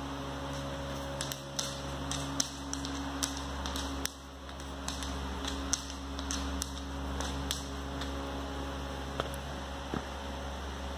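Dogs' claws clicking on a hard floor as they move about, an irregular scatter of sharp ticks, over a steady background hum.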